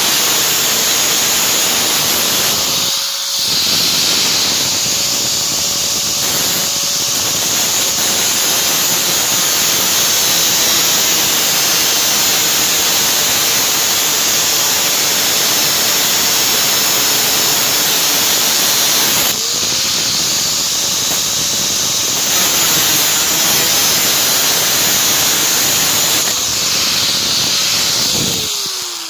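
Small angle grinder with a thin cut-off wheel grinding through a rusted bolt: a steady loud grinding hiss over the motor's whine, easing off briefly twice. Near the end the grinding stops and the motor winds down, its pitch falling.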